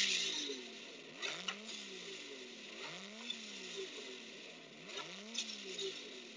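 Racing car engine revved again and again, its pitch rising and falling about once a second, with a few short bursts of noise between the revs.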